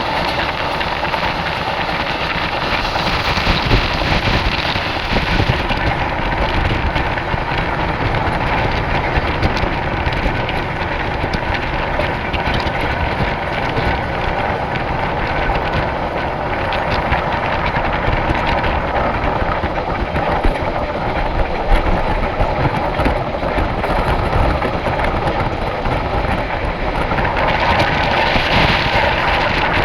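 Dakshin Express passenger train running on the track: a steady rumble and rattle with frequent small knocks, a little brighter for a few seconds near the start and again near the end.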